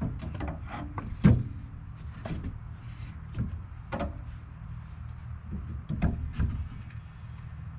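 Irregular knocks and clunks from fence-building work, about seven of them, the loudest about a second in, over a steady low hum.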